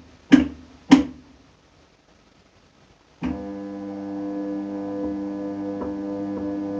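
Toshiba AW-50GK fully automatic washing machine, new, knocking loudly twice about half a second apart ('kon-kon'): the clutch switching over, a sound the maker says is not a fault. About three seconds later its motor starts and runs with a steady hum.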